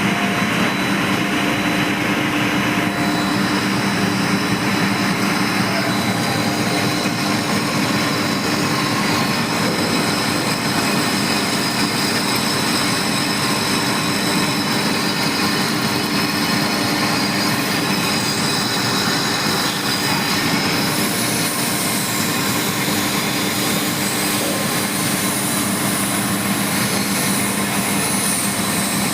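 Lathe running steadily: a constant machine hum with a steady high whine. About two-thirds of the way through, a thin high squeal joins in and wavers in pitch.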